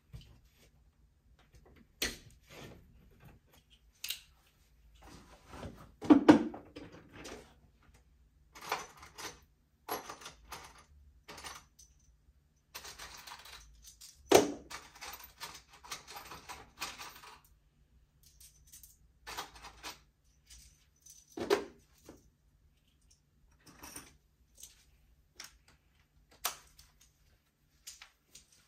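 Scattered handling noises: irregular clicks and knocks, with a stretch of rustling or scraping about halfway through and three louder knocks spread across the stretch.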